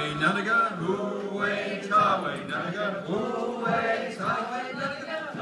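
A group of voices singing unaccompanied in a chant-like style, with long held notes that slide between pitches.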